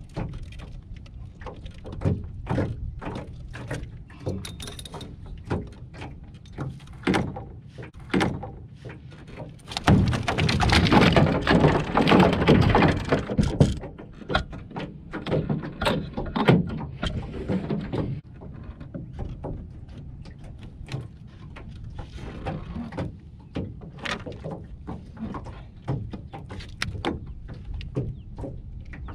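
A big catfish being handled and unhooked on the floor of an aluminum jon boat: repeated knocks and thumps against the hull. About ten seconds in comes a loud flurry of thrashing and rattling that lasts about four seconds.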